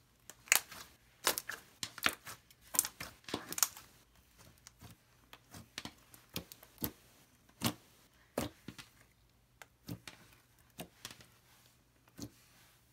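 Glossy slime being squished and poked by hand, giving a run of sharp little clicks and pops, thick at first and then more spaced out.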